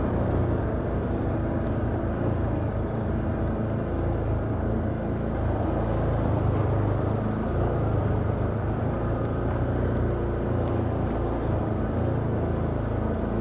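Can-Am Outlander ATV engine running steadily while riding, a low, even drone with no change in pace.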